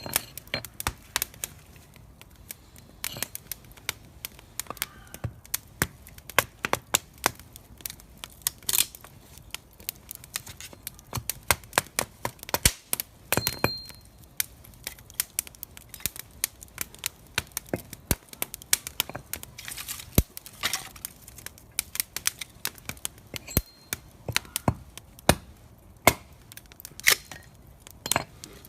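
Wood fire crackling, with quick irregular pops and snaps, a few of them much louder.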